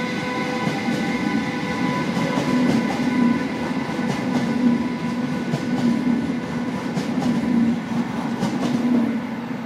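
Red DB electric locomotive hauling Intercity coaches past: a dense rumble of wheels on rail with clicks over the rail joints, over a steady electric whine. It gets a little quieter near the end.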